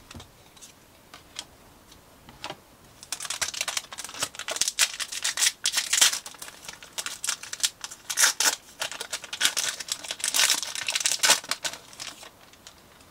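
Foil wrapper of a Pokémon card booster pack crinkling as it is handled and torn open, a dense run of crackles from about three seconds in until near the end, after a few faint ticks.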